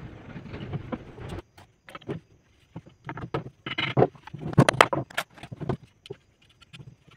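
Wooden chair parts knocking and clattering against each other and the workbench as the bolted frame is handled and folded, in irregular short clunks with pauses between them. A steady rumbling noise fills the first second or so and cuts off abruptly.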